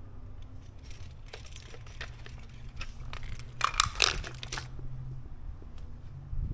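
Handling clatter as a short hose with metal clamp fittings and plastic TDS meters are set down on a concrete floor: scattered light clicks, then a louder cluster of clicks and knocks about three and a half to four and a half seconds in, over a low steady hum.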